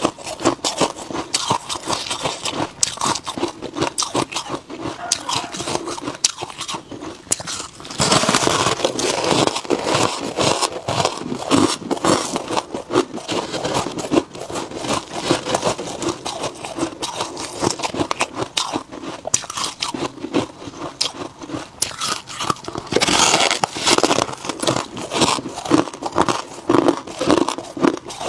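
Close-miked biting and chewing of freezer frost: dense, squeaky crunching throughout, with louder stretches of crunching about eight seconds in and again around twenty-three seconds.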